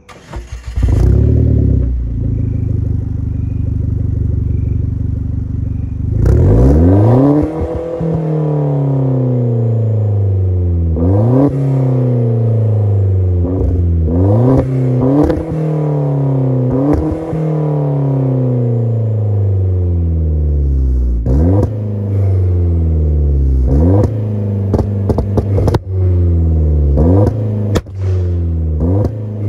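Hyundai Genesis Coupe 2.0T turbocharged four-cylinder heard through a CNT V3 cat-back exhaust. It idles steadily for about six seconds, then is revved several times, with quicker short blips of the throttle near the end.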